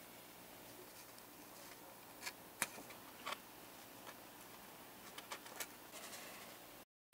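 Faint clicks and ticks of a hobby knife cutting a small decal out of a paper decal sheet, with the sheet rustling under gloved fingers. Three sharper clicks come a couple of seconds in, then a run of small ticks later, and the sound cuts off suddenly near the end.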